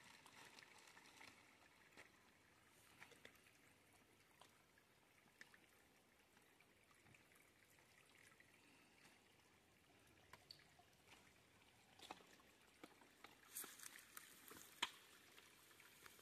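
Faint trickling water at a shallow rocky creek as a soft collapsible water pouch is dipped and filled. A few light clicks and knocks come near the end.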